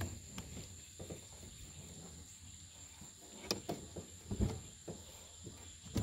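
Insects at dusk keeping up a steady high-pitched drone, with a few faint knocks from the boat and tackle about halfway through.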